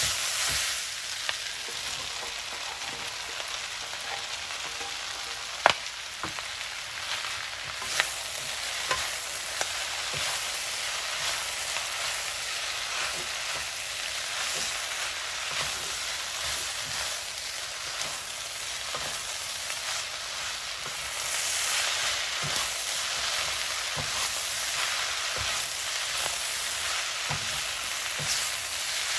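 Yakisoba noodles with pork, carrot and cabbage sizzling over high heat in a frying pan while being stir-fried with a wooden spatula. The hiss is steady, with a few sharp knocks, the loudest about six seconds in.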